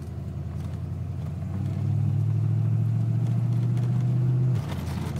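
Ford 5.0 V8 engine of a 1987 Mustang running under throttle, growing louder about a second and a half in, holding, then dropping off suddenly near the end. This uneven running is the bucking and stumbling on throttle that the owner is chasing as a misfire.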